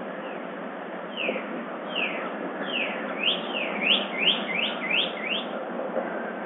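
A songbird singing a run of short slurred whistled notes, the first few falling in pitch, then a quicker series of rising ones that stops just before the end, over a steady background hiss.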